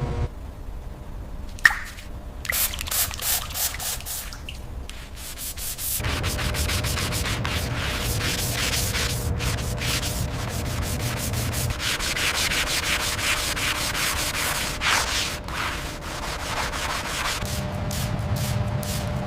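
Sanding: abrasive rubbing strokes, spaced out at first and then quick and continuous from about six seconds in, with a single sharp click near the start.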